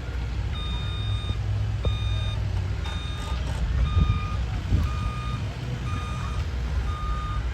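A construction vehicle's reversing alarm beeping steadily, about once a second, over a steady low rumble.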